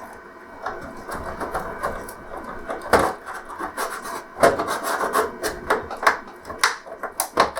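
A plastic pry pick scraping and rubbing along the seam of a plastic TV back cover, with several sharp plastic clicks and snaps as the case's snap-in clips are worked loose.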